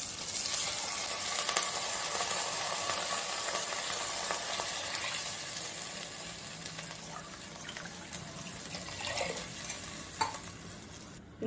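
Glassfuls of water poured from a steel tumbler into a hot pan of cooked tomato-onion masala, hissing and sizzling as it hits the pan. The hiss fades after about five or six seconds, followed by quieter pouring and splashing as the tumbler is refilled from a bottle.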